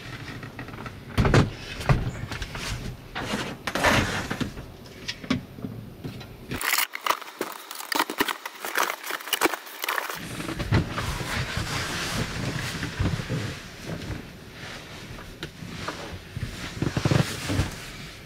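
Irregular wooden knocks, thumps and rustling of furniture being handled: a wooden table is lifted and shifted, and the boards of a bed platform are set in place.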